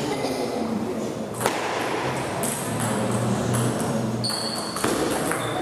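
Table tennis ball clicking off the paddles and the table during a rally. The sharp hits are spaced unevenly, with the loudest about a second and a half in.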